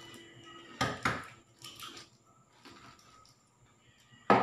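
Balut eggshells being cracked and peeled by hand: a few sharp taps and crackles about a second in, and a louder pair near the end.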